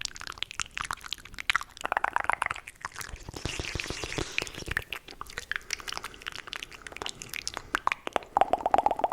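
Fast, aggressive ASMR mouth sounds: a dense run of rapid wet clicks and tongue pops, with a hissing stretch about halfway through and a buzzing, pitched rattle near the end.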